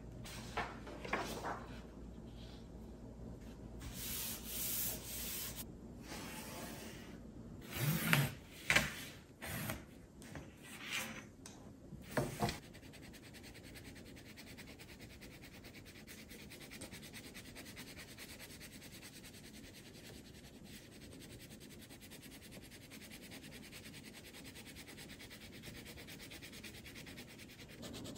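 Crayon scribbling quickly back and forth on paper laid over cardboard: a steady, fine, scratchy rubbing through the second half. Before it come a few louder knocks and rustles of paper and cardboard being handled.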